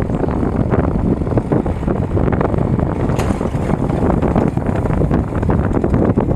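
Tractor engine running steadily, with wind noise on the microphone.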